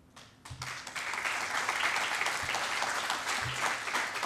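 Audience applauding. The clapping starts up about a second in and then holds steady and dense.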